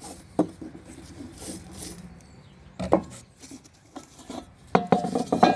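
Hand scrubbing against the rusty metal of a kerosene heater, in uneven rasping strokes, to strip the rust before priming. A couple of sharp knocks fall in the first three seconds.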